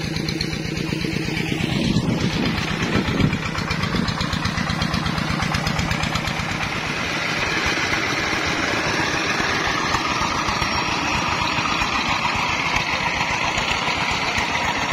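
Single-cylinder diesel engine of a công nông farm truck running steadily with an even, rapid chugging beat.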